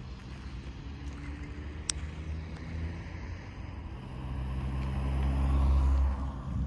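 A motor vehicle's engine running, growing louder to a peak near the end and then dropping away, with a single sharp click about two seconds in.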